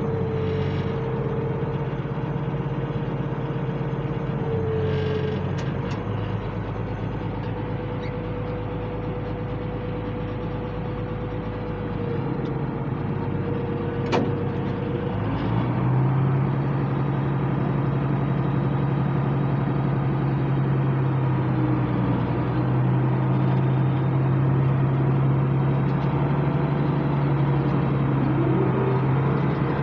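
International 886 tractor's diesel engine running steadily under load while baling hay. About halfway through the engine note changes and gets a little louder; there is one sharp click just before.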